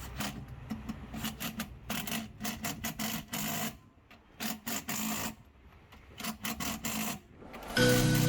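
Quick, repeated rubbing strokes of hand scrubbing on a washing-machine part during its teardown cleaning, broken by short pauses. Loud background music comes in near the end.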